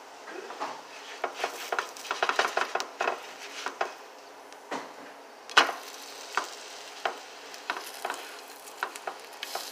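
Cheese quesadillas frying in a little oil in a frying pan over medium-high heat: a steady sizzle with many sharp crackles and pops, thickest about two seconds in, and one louder crack a little past halfway.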